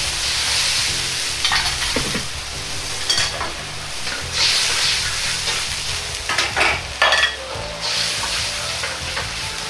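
Sweet-and-sour sauce sizzling hard in a hot wok as it comes to the boil, the hiss swelling and easing in waves. A metal ladle stirs it, scraping and clinking against the wok several times.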